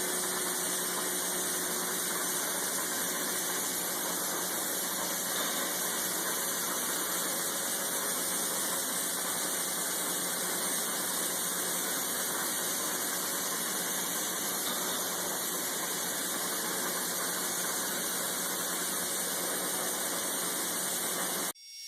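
Dry ice blaster's compressed-air jet hissing steadily, with a faint low hum under it, cutting off suddenly near the end.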